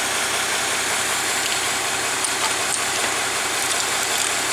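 Bus diesel engine idling steadily.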